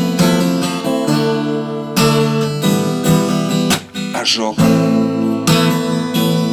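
A song with strummed acoustic guitar chords; a voice sings a single word about four seconds in.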